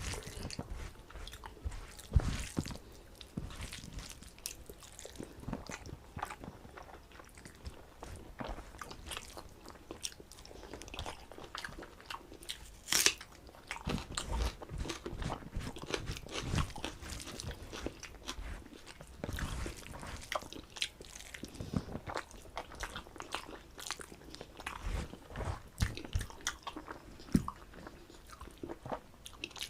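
A person eating a rice meal close to the microphone: irregular chewing with crunchy bites, the sharpest crunch about 13 seconds in.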